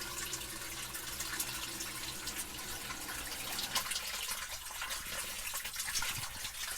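Newly installed sump pump running after a test fill, its motor humming as it pumps water out of the crock, with water rushing and gurgling; the hum drops away about four seconds in.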